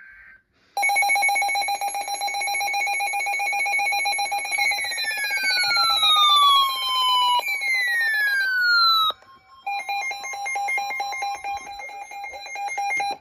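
Emergency Alert System attention signal: a loud, steady, harsh two-tone alert tone that precedes a severe thunderstorm warning broadcast. Falling pitch glides sweep over it in the middle, and it breaks off briefly about nine seconds in before resuming.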